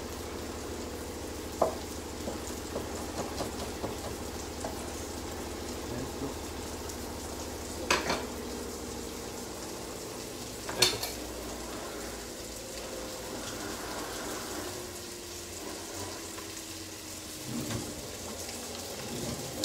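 Onions frying in olive oil in a pan, a steady sizzle, with a few sharp knocks from a knife on a wooden cutting board, the loudest about eleven seconds in.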